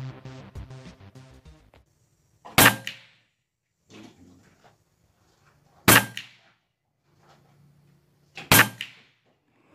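Background music fading out, then three shots about three seconds apart from a Huben K1 semi-automatic PCP air rifle firing .22 JSB Monster Redesign pellets. Each shot is a sharp crack with a short ring after it, and there are faint knocks between the shots.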